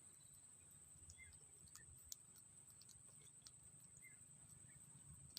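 Near silence: a faint, steady high-pitched whine with a few faint scattered clicks.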